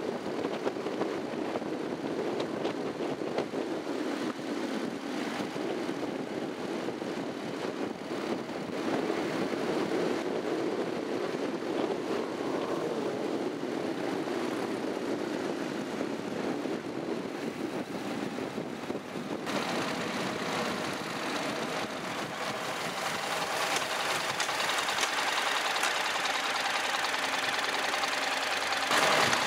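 Honda NC700X motorcycle's parallel-twin engine running under way, heard from an onboard camera with wind and road noise. About two-thirds of the way in the sound changes abruptly to a brighter, hissier mix.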